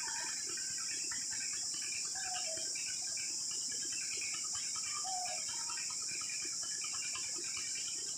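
Steady high-pitched drone of insects such as cicadas or crickets, with many short bird chirps and calls scattered over it and a few brief falling notes.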